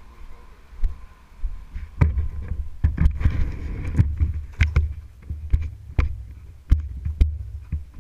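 Handling noise on a moving wearable camera: low thumps and rubbing with a run of sharp knocks, starting about two seconds in as the camera swings about.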